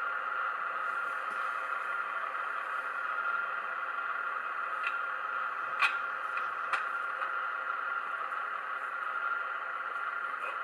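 Sound decoder in a Hornby OO-gauge Class 153 Sprinter model playing a steady diesel engine sound through its small speaker. There are a few short, sharp clicks in the middle.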